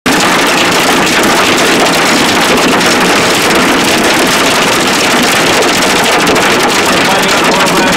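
Large hail hitting a car's roof and windshield, heard from inside the car: a loud, dense, unbroken clatter of many small impacts.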